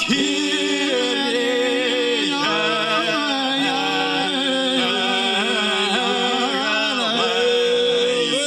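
Small group of men singing a Ukrainian hymn to the Virgin Mary in harmony, unaccompanied, on long drawn-out notes.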